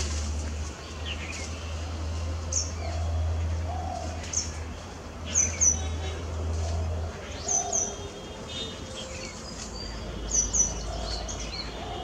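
Wild birds calling and chirping: short sharp high calls, several in quick pairs, with some falling notes between. A steady low hum underneath stops about seven seconds in.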